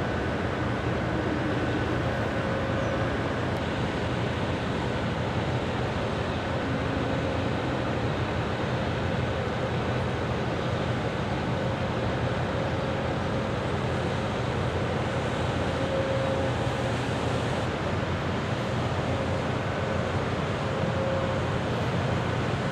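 Steady low engine drone of a passing large container ship and its escort tug, under a constant rushing noise of wind and water that does not change.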